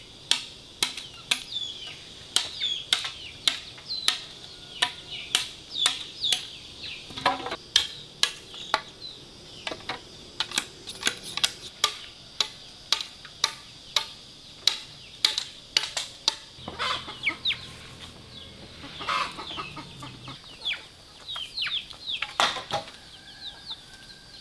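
Sharp knocks or taps repeating irregularly, roughly twice a second, with short high peeping calls of chickens among them.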